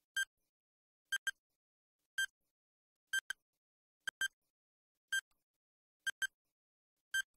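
Countdown-timer beeps: a short, high electronic beep, often doubled, once a second, with silence between.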